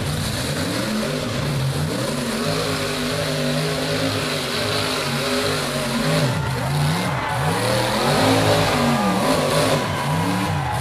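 Rock bouncer buggy's engine running hard under load on a steep rocky climb. It holds fairly steady at first, then from about six seconds in revs up and down in repeated bursts, about once a second.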